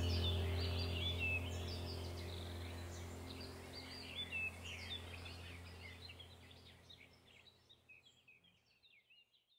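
Birds chirping over a low steady hum, the whole background fading out to silence about seven seconds in.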